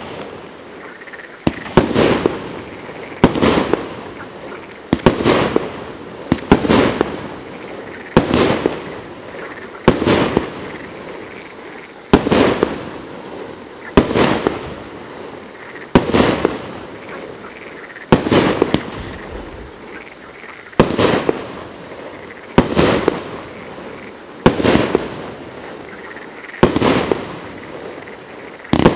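A 25-shot consumer firework cake with 30 mm tubes firing one shot about every two seconds, each a sharp bang that trails off over about a second.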